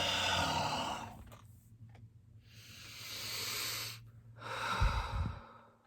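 A person taking three long, heavy breaths, each a hissing rush of air with short pauses between. The last breath pops low on the microphone.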